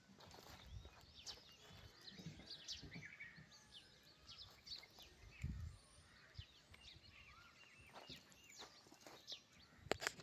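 Faint, busy scatter of short, high chirping animal calls, many of them sliding downward in pitch, with a few dull low thumps.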